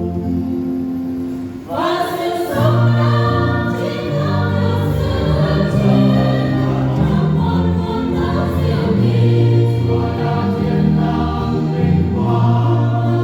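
Church choir singing a Vietnamese Easter hymn in parts; a held chord breaks off briefly near the start and the full choir comes in with a new phrase about two seconds in.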